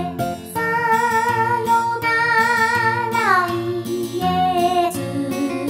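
Female singer performing an enka ballad over a karaoke backing track, holding long notes with a wide vibrato and sliding down about three seconds in.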